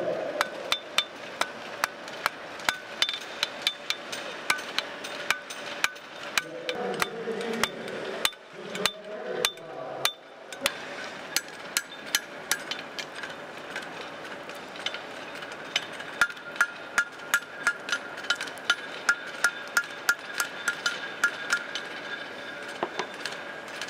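Blacksmiths' hammers striking hot steel on anvils while forging tongs, with the anvils ringing after each blow. The blows come irregularly, two to three a second, and settle into a steadier run of strikes about two-thirds of the way through.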